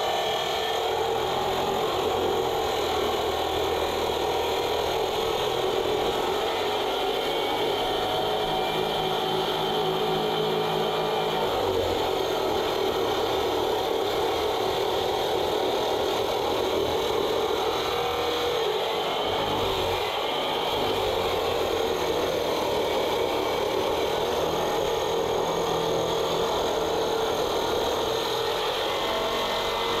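Handheld electric concrete saw running steadily, its blade grinding a wet cut through old, fairly thick concrete floor.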